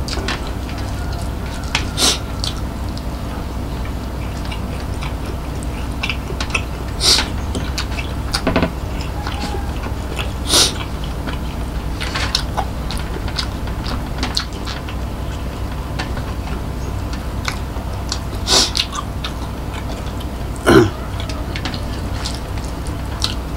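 Close-miked mouth sounds of a man eating soy-sauce egg with chilli by hand: chewing, with a sharp wet smack every few seconds and fainter clicks between, over a steady low hum.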